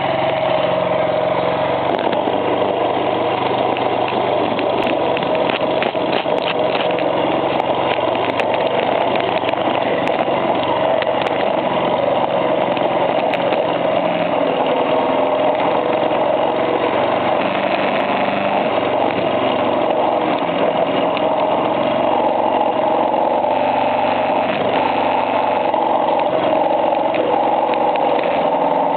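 Honda CB50's small single-cylinder four-stroke engine running steadily, making an abnormal noise from inside the engine.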